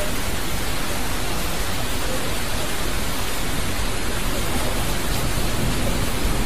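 Heavy rain pouring steadily onto a flooded lane, a dense, even hiss with no letup.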